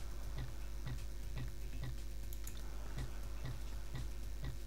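Even ticking, about two ticks a second, from an online slot game's sound effects as its bonus free spins play out, over a low steady hum.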